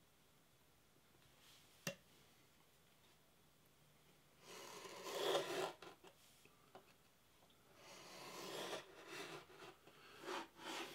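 Hobby knife blade scoring through painter's tape on a wooden board along the edge of a plastic protractor: two rasping cuts, the first about four seconds in and a longer one from about eight seconds, after a single click near two seconds.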